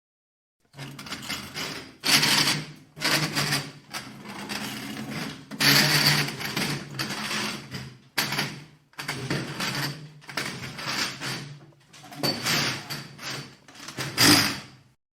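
Metal creaking and grinding in a run of strained bursts, each about a second long with short breaks, over a steady low hum, with a sharp loud squeal near the end.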